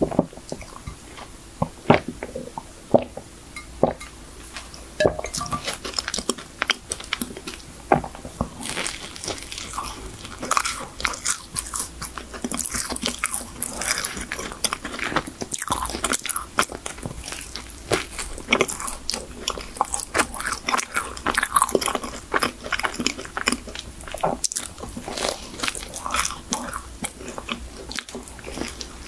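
Close mouth sounds of eating a Hershey chocolate crème choux, a cocoa-dusted, cream-filled choux pastry: biting and chewing as many small clicks and smacks. They are sparse over the first several seconds, around a sip of iced coffee, and come thick and fast from about eight seconds in.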